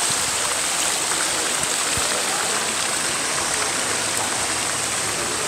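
Water fountain splashing in a steady, unbroken rush.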